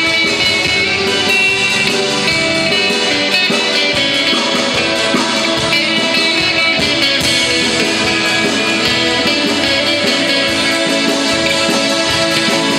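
Music with guitar, running steadily.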